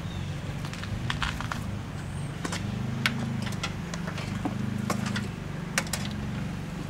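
Scattered light clicks and rattles of a wiring harness and its plastic connectors being handled and laid into a car's engine bay, over a steady low hum.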